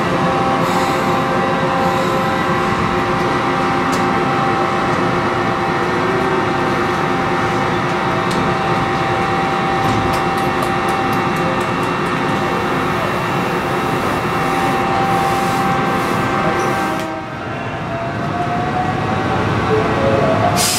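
Ohmi Railway 220 series electric railcar standing at the platform with its equipment humming steadily. About seventeen seconds in it starts to pull away, and its nose-suspended traction motors give a rising whine as it gathers speed.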